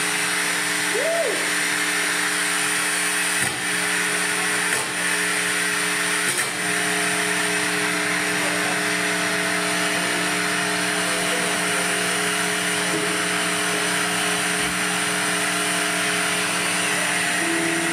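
Live band playing a droning noise passage: a steady wall of distorted electronic and guitar noise over long held notes that change about six seconds in and again near the end.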